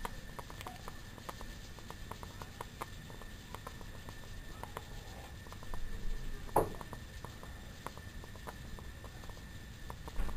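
Water heating in a corked test tube over a Bunsen burner: irregular light clicking pops over a low steady rumble, with one louder knock about six and a half seconds in.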